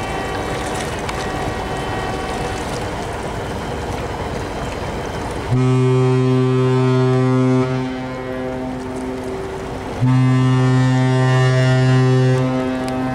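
A ship's horn sounds two long, steady blasts, each two to three seconds long, the second starting about two seconds after the first ends, over a steady background rush.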